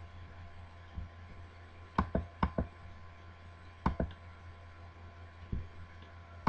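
Computer mouse button clicks, coming in quick press-and-release pairs a few times, over a low steady hum.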